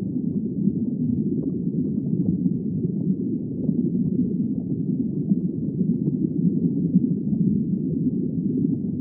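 Underwater ambience: a steady, muffled low rumble of moving water as heard below the surface.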